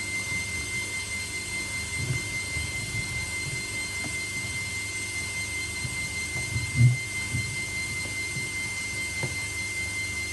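A washing machine's rubber door seal being pressed back over the metal rim of the door opening by hand: soft rubbing and knocks, with one louder thump about seven seconds in. A steady high-pitched whine sounds throughout.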